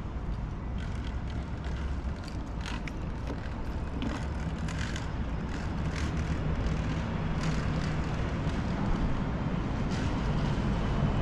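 Outdoor town-square ambience: a steady low rumble with scattered faint clicks and ticks.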